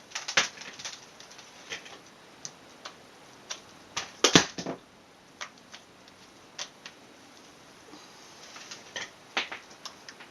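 Irregular light clicks and taps from handling a partly reassembled laptop, with a louder close pair of knocks about four seconds in.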